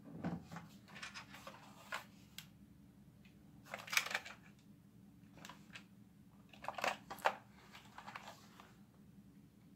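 Plastic toy guns and swords being handled and lifted out of a cardboard box: faint scattered clacks and rustles, a little louder about four seconds in and again around seven seconds in.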